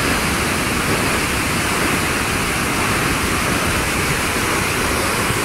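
The Velino river plunging down the Marmore Falls in heavy flow: a steady, loud rushing of falling water.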